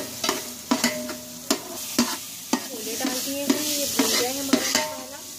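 A spoon stirring and knocking against a metal pot about twice a second, while onion, spice paste and yogurt masala sizzles in hot oil as it is fried for a pulao.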